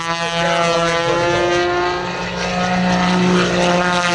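Engine and propeller of a modified Pitts S-2S aerobatic biplane droning steadily at high power as it dives down to a low pass over the runway, the pitch shifting a little about halfway through.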